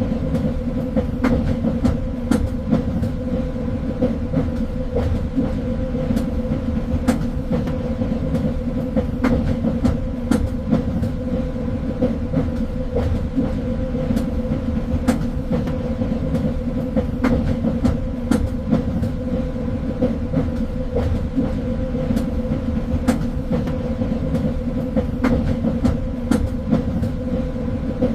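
Train running steadily on rails: a continuous low rumble with a steady hum, and irregular clicks and clacks of the wheels over the track.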